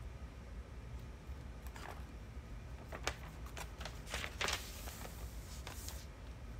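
Small clicks and rustles of tableware and things being handled on a table, several scattered, the loudest cluster about four and a half seconds in, over a steady low hum.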